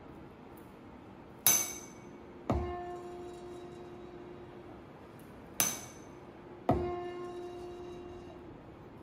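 A tuning fork is struck and then knocked onto the sonometer's wooden box, twice. Each strike gives a sharp high ring, and about a second later the knock of the stem meeting the box sets off the fork's steady tone, which the box sounds out loudly. Each time the tone fades over two to three seconds. The wire is being driven at the fork's frequency to find its resonant length.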